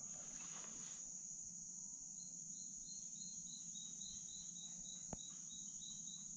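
Steady, high-pitched chorus of swamp insects, with a run of short, evenly spaced chirps, about three a second, starting about two seconds in. One faint click near the end.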